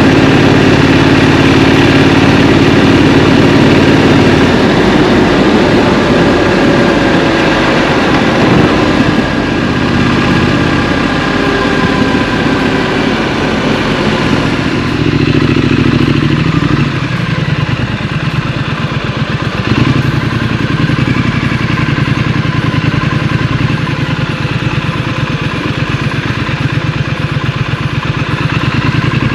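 Street scrambler motorcycle engine running close to the microphone as it is ridden, its note rising and falling with the throttle.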